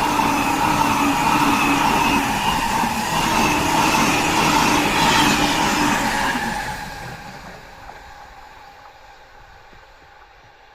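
E259 series Narita Express electric train passing at speed, loud for the first six seconds or so and then fading away steadily as it moves off.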